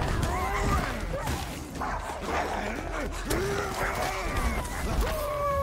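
Wolves snarling, whining and yelping as they fight, in a film's sound effects. Near the end a long held tone comes in, falling slightly in pitch.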